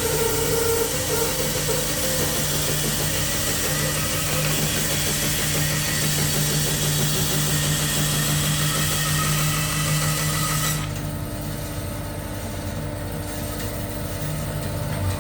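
Hammer N2-35 bandsaw running and sawing through a tall piece of wood at full cutting height, a steady motor hum under a loud cutting hiss. About eleven seconds in, the cutting hiss drops away and the saw runs on with just its hum.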